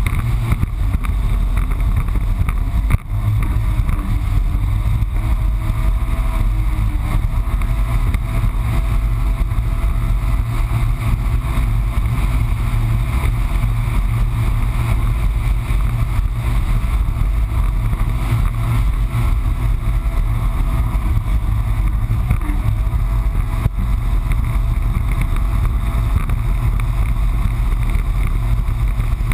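Yamaha FX Cruiser HO WaveRunner's four-stroke engine running under way, a heavy, steady low rumble with rushing noise over it. The engine note rises and falls a few times with the throttle, and the sound drops out for a moment about three seconds in.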